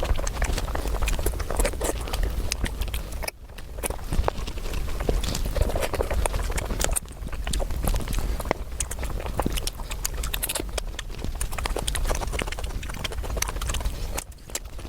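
Close-miked eating: a dense, continuous run of crisp crunching and smacking clicks from chewing food, broken by a few brief gaps.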